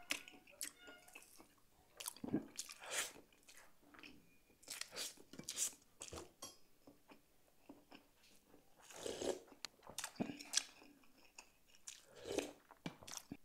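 Close-up eating sounds: wet chewing and lip-smacking on tender boiled beef and rice, in short irregular clicks and smacks. Near the end, a spoonful of sour sinigang broth is slurped.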